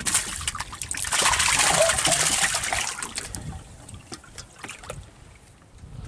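Water splashing and trickling, strongest from about one to three seconds in, then fading to scattered small knocks.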